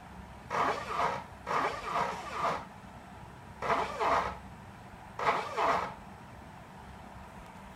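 Small stepper motors of a DIY Arduino CNC plotter driving its axes in four short bursts, each a whine that bends in pitch as the motors speed up and slow down.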